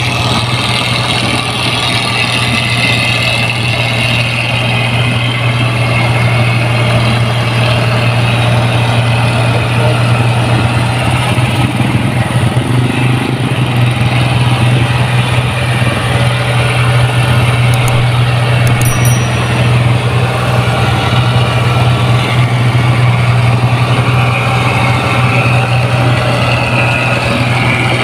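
Rice combine harvester engine running steadily with a constant low hum.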